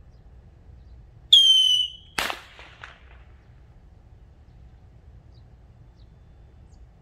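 Whistling firework rocket (삐리뽕) going off: a shrill whistle, falling slightly in pitch and lasting just under a second, then a sharp bang that echoes back a few times.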